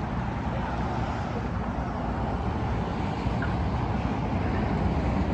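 Steady vehicle running noise, a low rumble under an even hiss.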